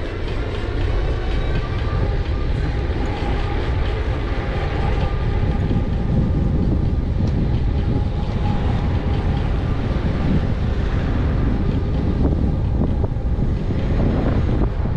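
Wind rushing over a bike-mounted action camera's microphone while riding an e-bike, with steady road noise and a faint whine in the first half.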